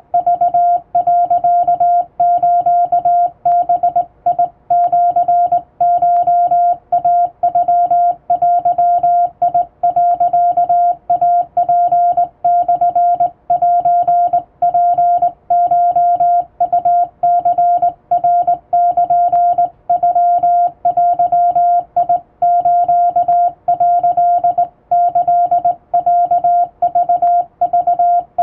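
Japanese wabun Morse code sent by hand on a straight key: a single steady mid-pitched sidetone beep keyed on and off in quick dots and dashes, with short breaks between characters.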